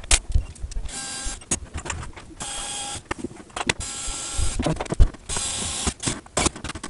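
Aluminium e-bike battery case being handled and fitted together: several scraping slides of metal against metal, half a second to a second each, with clicks and knocks in between.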